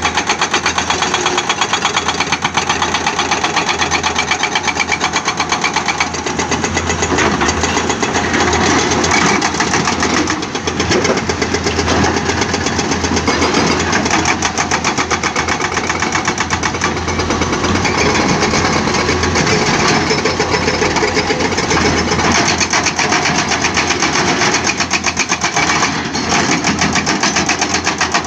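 An excavator's hydraulic breaker hammering rock in a fast, steady run of blows, over the running diesel engines of the excavators.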